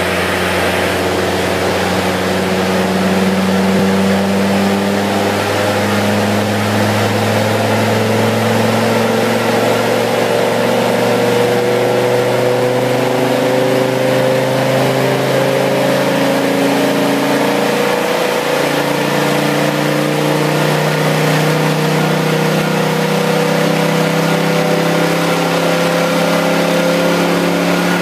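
Ford Focus ST's turbocharged 2.5-litre five-cylinder engine running on a rolling road through a de-catted full Mongoose exhaust, its note climbing slowly and steadily, with a change in tone about eighteen seconds in.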